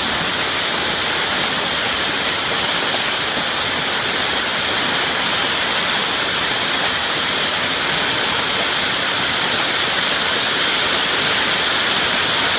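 Heavy rain pouring down steadily in a storm: an even, loud hiss that swells slightly toward the end.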